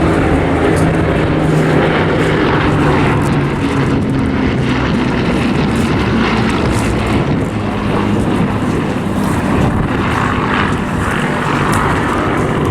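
Piston aero engines of a Bristol Blenheim and Spitfires flying past in formation: a steady, loud propeller drone whose pitch shifts slightly as the aircraft pass.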